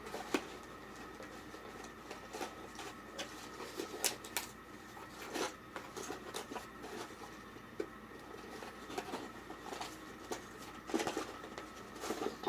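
Irregular light clicks, taps and rustles of small objects and packaging being handled, with a small cluster about four seconds in and another near the end, over a faint steady electrical hum.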